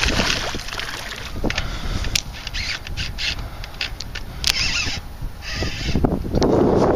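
Wind buffeting the microphone as a low rumble, with scattered sharp clicks and rustles, and a louder gust near the end.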